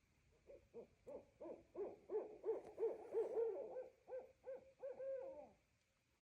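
Owl hooting: a quick run of about a dozen hoots that ends in a longer hoot falling away in pitch.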